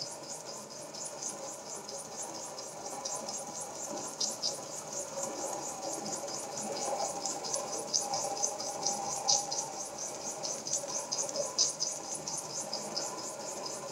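Two small model steam beam engines running together on steam, giving a rapid, even ticking, several beats a second, over a steady hiss.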